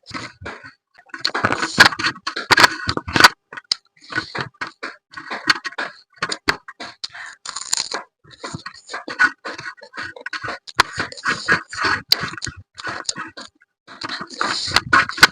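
Close-miked eating of crab curry: wet chewing, sucking and slurping at the crab, with sharp clicks and cracks, coming in bursts separated by short pauses.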